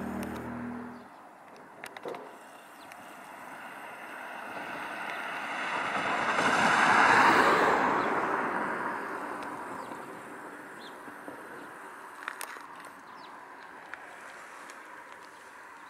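A road vehicle passing by: the sound of its tyres swells to its loudest about seven seconds in, then fades away over the next few seconds.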